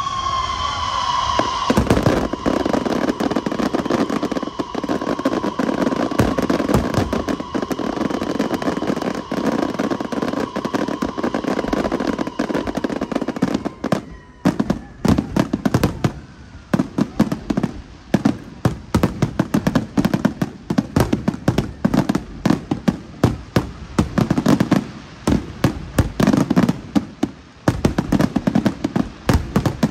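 Aerial fireworks bursting in a rapid, continuous barrage. A long whistle sounds over it and fades by about halfway. After that the bangs come as separate volleys, two or three a second.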